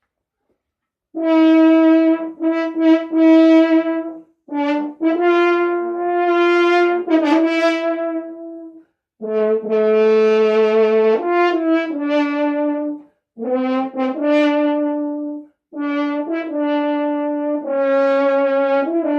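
A valved brass horn played in short phrases of held and slurred notes, starting about a second in, with brief breaks between phrases. The player says afterwards that the valves still stick.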